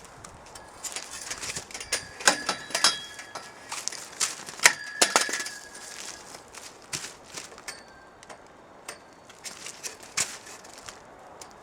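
Metal shed frame poles clanking and clinking as they are handled and fitted together, irregular knocks with short metallic ringing, busiest about two seconds in and again around five seconds in, then lighter clicks.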